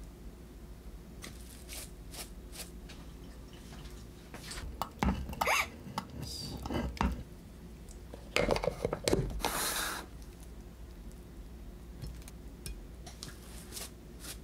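Kitchen handling sounds: light clicks of a silicone spatula scooping stir-fried fish cake from a frying pan onto a glass plate. Then come two louder spells of clatter and rustle as a clear plastic food-storage container is filled and handled, and a few light clicks near the end.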